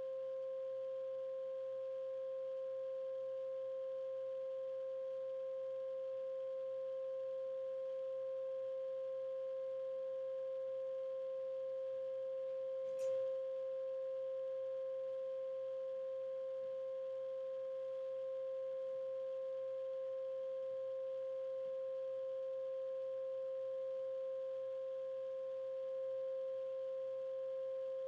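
Steady 528 Hz sine tone, held unbroken at one pitch, with a brief click about halfway through.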